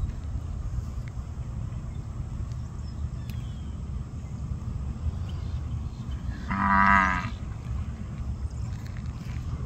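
One of the grazing cattle gives a single short moo about six and a half seconds in, over a steady low rumble.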